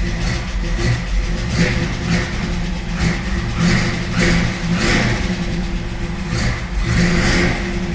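The 1932 Ford hot rod's engine, started cold after sitting, runs unevenly just after catching, with repeated surges as the throttle is pumped.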